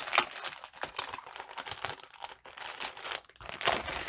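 Thin plastic bag crinkling and rustling as it is opened by hand and a stack of paper is pulled out of it, an irregular run of crackles throughout.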